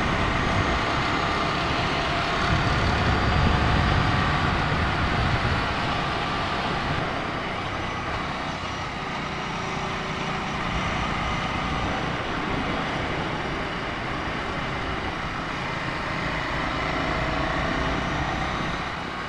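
Ducati Scrambler Sixty2's 400 cc air-cooled L-twin engine running steadily on the move, mixed with a continuous rush of wind and road noise.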